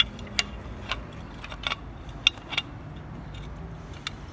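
Small metal swaging-tool dies clicking and tapping as they are handled and fitted into the tool: about seven sharp, irregular clicks over a faint, steady low hum.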